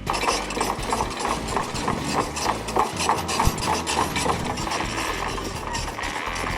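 Heavy construction machinery working on the site: a fast, uneven run of metallic clicks and clanks, about four or five a second, over a low engine rumble.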